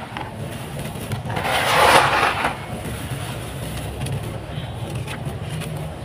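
Dry, dusty sand-and-cement dirt with small stones crumbling in hands and pouring back onto the pile, a gritty hiss with small ticks of grains, swelling to a louder rush about two seconds in.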